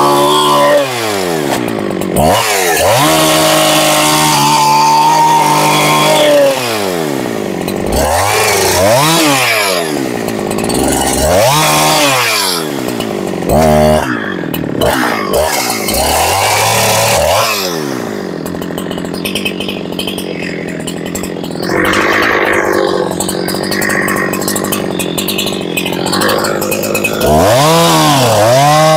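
Husqvarna 372XP 70cc two-stroke chainsaw limbing a felled langsat tree, revving up and dropping back again and again as it cuts through branches. In the second half it runs quieter for several seconds, then revs high again near the end.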